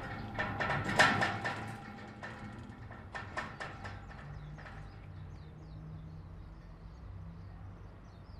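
A metal gate rattling and clanking as someone climbs over it: a run of knocks with a ringing metallic tone, the loudest about a second in, dying out by about three and a half seconds. After that, only a low steady hum with faint high ticks.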